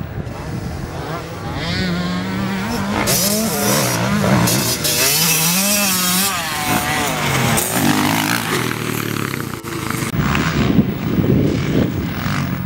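Motocross dirt bike engine revving up and down as it rides the track, its pitch rising and falling again and again.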